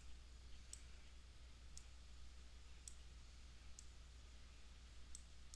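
Faint single clicks of a computer mouse, about six of them spaced roughly a second apart, over a low steady hum.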